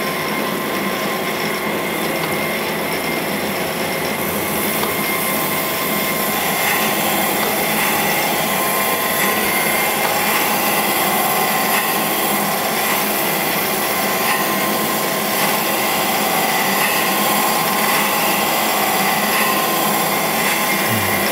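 Cam grinder's abrasive wheel wet-grinding a lobe of an FE Ford solid roller camshaft under coolant, a steady grinding noise over the hum of the machine. The grind grows brighter about four seconds in. The lobe is being brought down toward size against a set stop.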